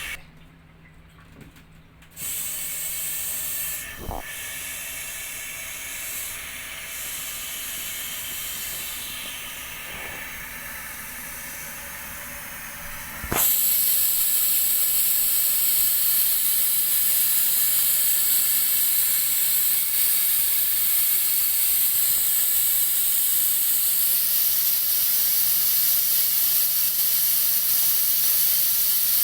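Water spraying with a steady hiss. It runs at a moderate level for about ten seconds, then jumps abruptly to a much louder, fuller spray about 13 seconds in and holds steady.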